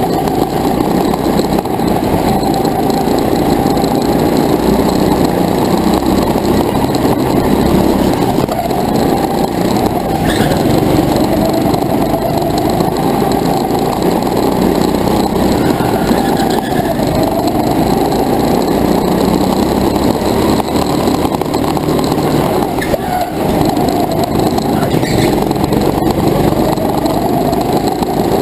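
A racing go-kart's small engine heard from on board, running hard throughout, its pitch rising and falling over and over as the kart speeds up and slows.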